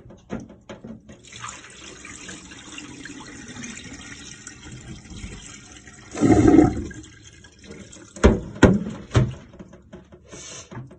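Water running or pouring, as for filling a pot or washing rice, with a louder burst about six seconds in. Three sharp knocks follow in quick succession, like a pot or utensil being knocked.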